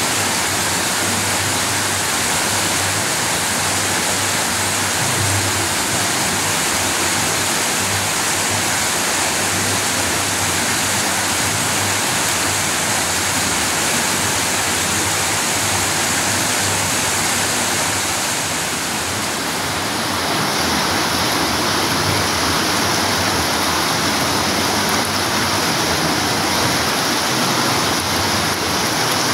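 River water rushing and splashing over rock in small cascades, a steady loud rush. About two-thirds of the way in it dips briefly and its sound changes slightly as a different stretch of cascade takes over.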